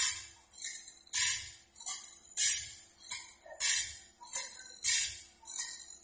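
Automatic band saw blade sharpener grinding the teeth of a wide sawmill band blade. A hissing metallic grind comes about every half second as each tooth is ground, every other stroke louder, over a steady motor hum.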